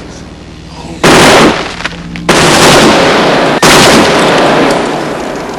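Machine gun film sound effect: a short burst of automatic fire about a second in, then a long sustained burst starting a little after two seconds that dies away in a fading echo near the end.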